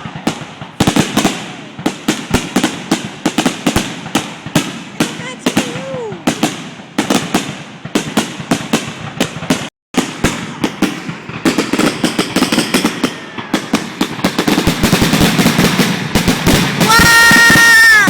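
Fireworks display in its finale: a rapid barrage of sharp bangs, several a second, building into a dense continuous crackle over the last few seconds, with a held high-pitched tone near the end.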